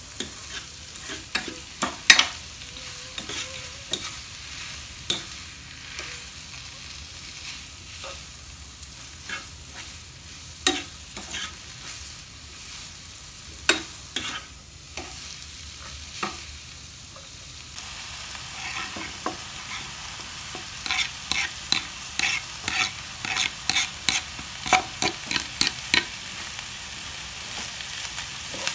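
Food stir-frying in a pan with a steady sizzle, while a spatula clicks and scrapes against the pan now and then. About two-thirds of the way in, the stirring speeds up into quick, repeated clicks, several a second.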